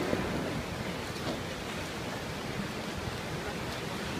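Steady wash of ocean waves with wind noise buffeting the microphone.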